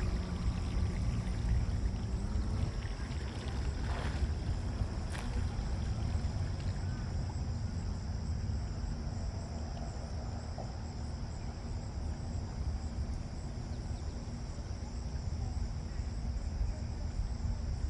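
Wind buffeting the microphone with a low rumble, over a steady high-pitched drone of insects. A faint motor hum fades out in the first couple of seconds.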